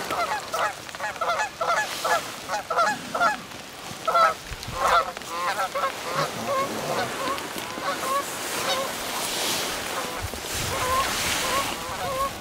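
A flock of geese honking: a dense, overlapping chorus of calls for the first few seconds, thinning to fewer, more evenly spaced honks. Rustling noise rises near the end.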